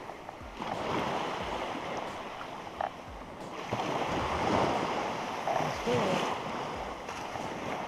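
Small surf washing up and draining back on a sandy beach, swelling and easing in uneven surges, with wind buffeting the microphone.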